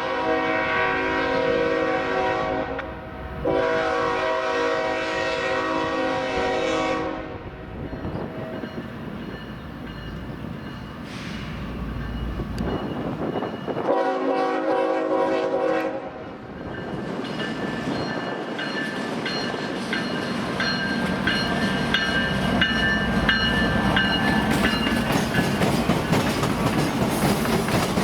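Diesel locomotive air horn sounding three long blasts. A train's wheels then clatter in a steady run of knocks across the rail crossing diamonds, with a high squeal of wheel flanges.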